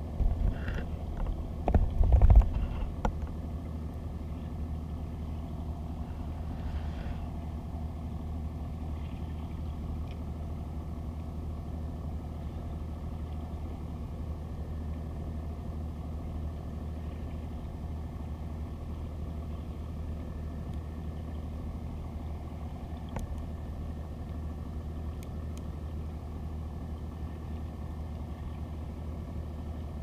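Steady low hum heard underwater, with a few knocks and thumps in the first three seconds.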